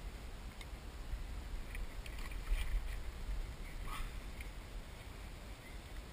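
Water and wind noise around a kayak while a salmon is being played on the rod, a steady low rumble with a few faint clicks and small splashing sounds around the middle.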